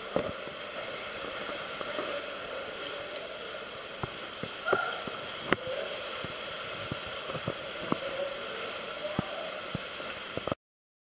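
Steady rush of running water in a cave, with scattered knocks and clicks over it; the sound cuts off suddenly near the end.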